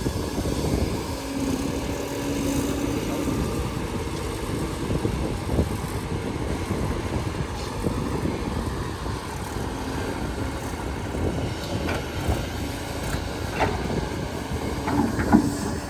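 Earth-moving machinery running with a steady low rumble, with a few knocks near the end.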